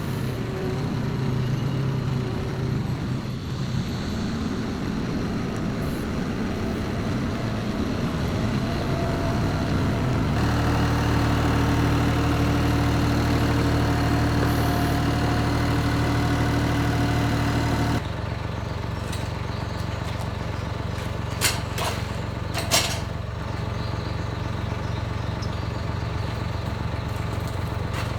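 Engine running steadily, with its sound changing abruptly twice as if cut between shots, and two sharp knocks near the end.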